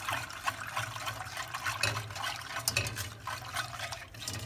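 Silicone balloon whisk stirring milk in a stainless steel saucepan: the liquid swishes and sloshes, and the wires tick irregularly against the pan. A low steady hum runs underneath.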